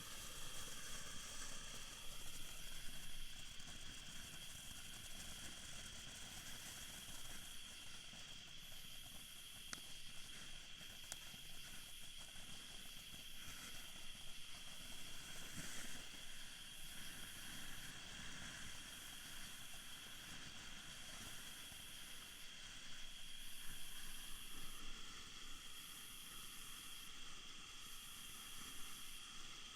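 Sky Song 'Summer Resort' heavy firework fountain burning with a steady hiss, with a couple of sharp crackles about ten seconds in.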